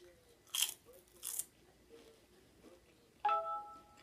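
Two crisp crunches of a chip being bitten, about half a second and a second in. About three seconds in, a short chime of a few steady tones rings and fades.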